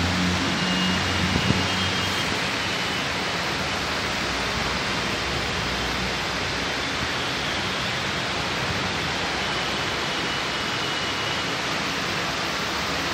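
Steady, even rushing hiss, with a low hum under it for the first two or three seconds.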